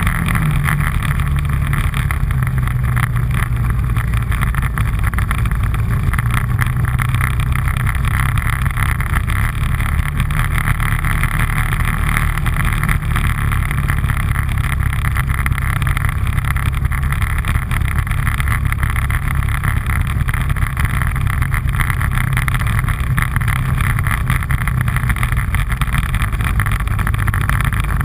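All-terrain vehicle engine running steadily while riding, a loud low drone that holds an even pitch and level.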